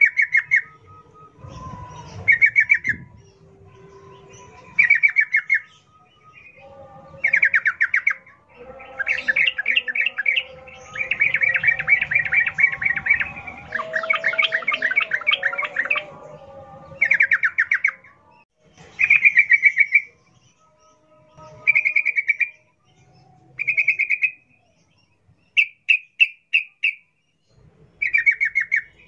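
Yellow-vented bulbul singing a loud, rapid bubbling song in repeated phrases about a second long with short pauses between them, and a longer, busier run of song in the middle.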